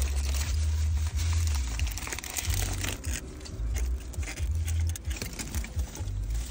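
Aluminium foil crinkling and rustling in crackly bursts as a foil taco wrapper is pulled open, over an on-and-off low rumble.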